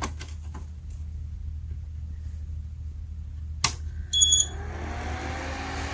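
A few small clicks as a power cable is plugged into a Dranetz 656 power analyzer, then a sharp click about three and a half seconds in and a short high electronic beep. The analyzer's cooling fan then spins up with a rising whine, over a steady low hum.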